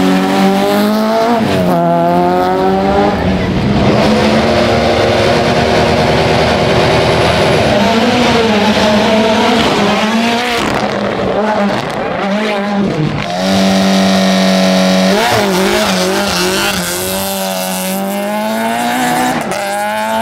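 Rally car engines at a hill-climb start, one car after another: revs held steady at the line, then climbing and dropping as each car launches and shifts up through the gears, with some tyre squeal.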